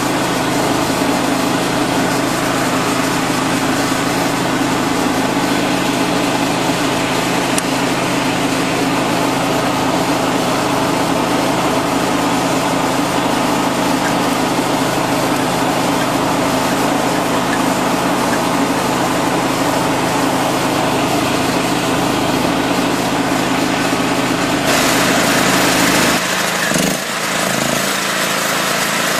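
Electric motor and hydraulic pump of a 9-ton vertical log splitter running steadily with a mains hum while the ram is worked. The sound briefly changes near the end.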